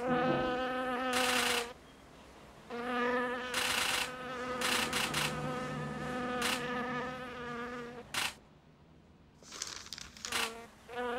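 A steady buzzing drone held at one pitch. It breaks off briefly about two seconds in and again for about two seconds near the end, and a few sharp clicks sound over it.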